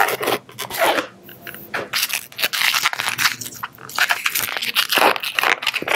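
Black 260 latex modelling balloon being twisted and worked between the fingers, the latex rubbing and crackling in a dense run of short scrapes.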